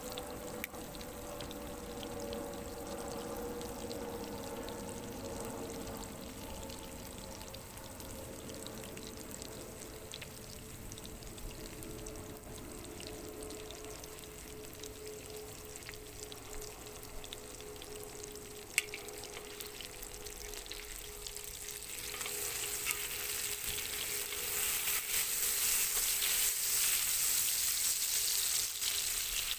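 Food frying in a hot pan, sizzling steadily, then getting much louder and brighter about three-quarters of the way through. There is one sharp click a little before the louder part.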